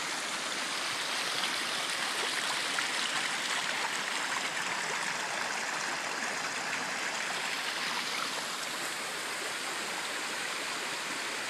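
A small brook rushing over rocks and spilling over a little concrete dam as a small waterfall: a steady rush of water.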